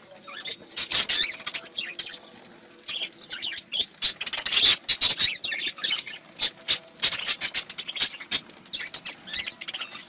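A flock of budgerigars chattering: a dense, irregular stream of sharp clicks and short squeaky, warbling chirps.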